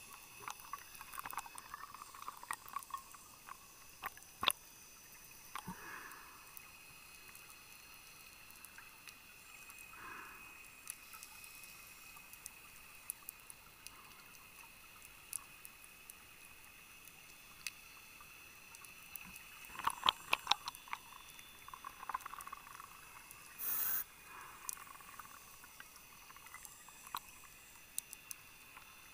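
Underwater sound on a scuba dive: a few bursts of bubbling from a regulator's exhaled air, over a constant scatter of sharp clicks and crackles. One short loud rush late on.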